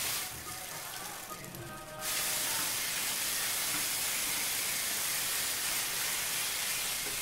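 Bathroom sink faucet running, water splashing into the basin and over hands being washed under the stream. The splashing turns louder and steady about two seconds in.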